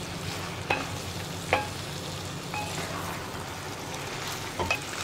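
Wooden spatula stirring a thick chickpea, plantain and yam curry in an uruli over a high flame, with a steady sizzle under the stirring. Two sharper knocks of the spatula against the pot stand out, just under a second in and about a second and a half in, with a few lighter ones later.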